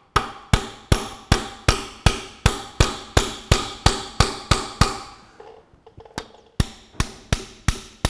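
Hammer striking a steel punch, about three blows a second, each with a short metallic ring, driving the locking key out of a Ferguson tractor's kingpin and steering arm. The blows stop for about a second and a half past the middle, then start again.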